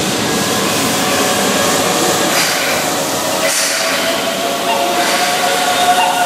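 Keihan 7200-series electric train pulling out of a station, its VVVF inverter and traction motors whining in steady tones over the rolling noise of the cars.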